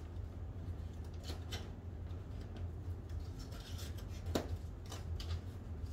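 Scissors snipping the tag off a new cushion, a few small snips with handling rustle, the sharpest about four seconds in, over a steady low hum.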